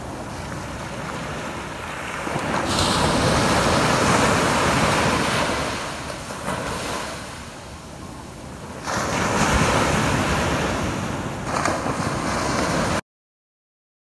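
Small ocean waves breaking and washing up a sandy beach: a rushing surf sound that swells twice and eases off in between, then cuts off suddenly near the end.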